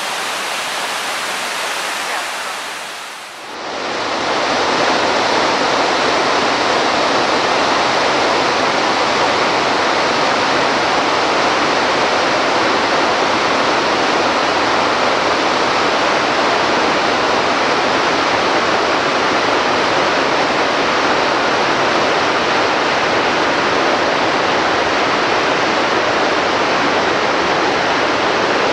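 Waterfall's steady rush of falling water. About three seconds in it dips briefly and comes back louder and fuller.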